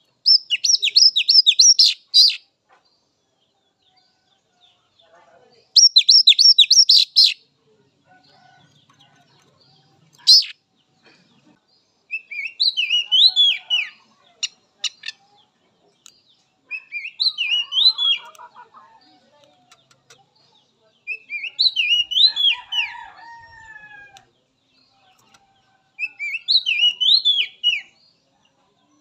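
Oriental magpie-robin singing: two fast runs of repeated sharp high notes, a single sharp note, then four short phrases of rising and falling whistled notes, with pauses of a few seconds between them.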